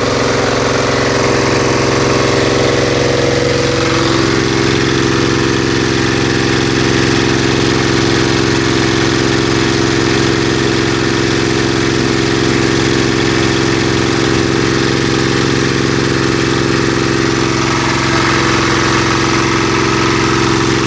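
Feed pellet mill running steadily, a loud continuous machine drone whose pitch dips slightly about four seconds in.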